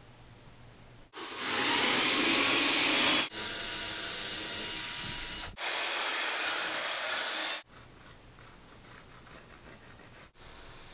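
Corded handheld power sander running on plywood, a loud steady rasping hiss from about a second in that breaks off abruptly twice. Near the end it drops to quieter, irregular scratching.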